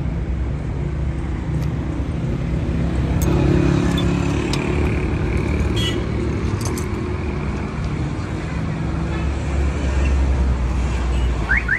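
Road traffic noise: a steady rumble of passing vehicles, swelling a little about four seconds in and again near the ten-second mark.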